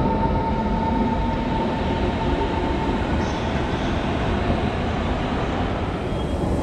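Berlin S-Bahn electric train moving along the platform: a steady rumble, with a high steady tone that fades out about two and a half seconds in.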